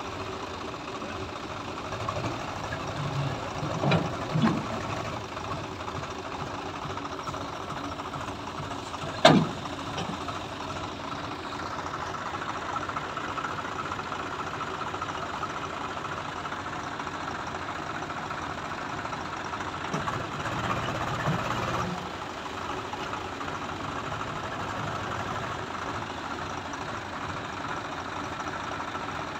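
Swaraj tractor's diesel engine running steadily at low revs, with a few louder bursts about four seconds in and a single sharp knock about nine seconds in.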